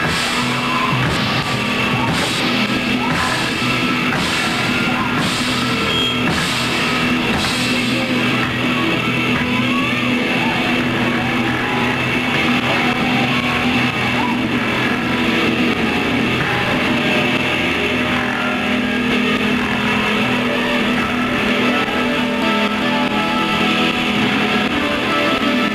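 Rock band playing live on guitars and drum kit, with cymbal crashes about once a second for the first several seconds, then a steady sustained wall of sound.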